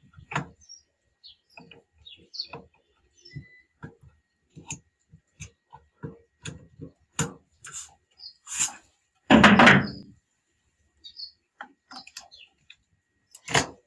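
Hands working inside an electrical distribution board while an earth leakage breaker (RCD) is swapped out: scattered light clicks and knocks of plastic breaker modules and tools. About nine seconds in comes one louder, longer thump and rustle.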